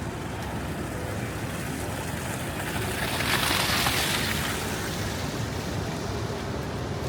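Steady street noise, with a vehicle passing on the snowy road about three seconds in: a hiss of tyres that swells and fades over a second or two.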